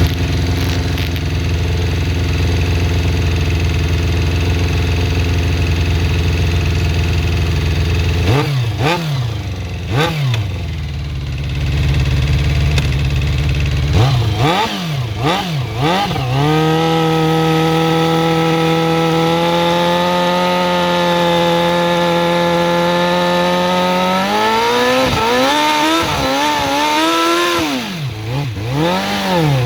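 Suzuki GSX-R400 inline-four engine idling steadily for about eight seconds, then revved in short blips, held at a raised steady speed for several seconds and blipped again. It runs with a horrible ticking that the owner suspects comes from the valve shims or the timing chain.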